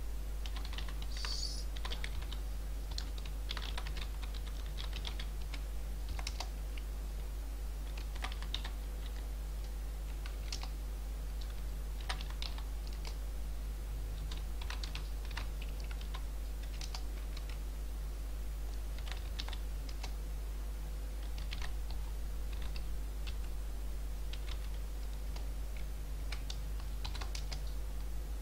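Typing on a computer keyboard: irregular runs of keystrokes with short pauses between them, over a steady low electrical hum.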